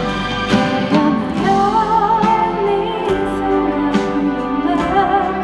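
Live band playing a slow pop ballad, with a wavering held melody note over the accompaniment.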